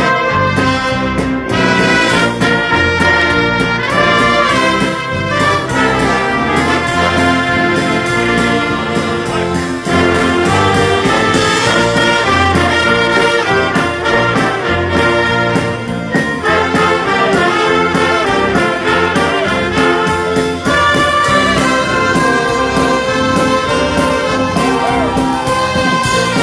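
A large band of trumpets, saxophones, clarinets, violins and a sousaphone playing together: loud, full ensemble music with the brass in front.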